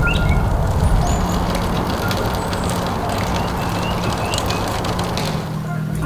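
Steady rumble like vehicle or road traffic noise, with a few short high bird chirps in the first few seconds.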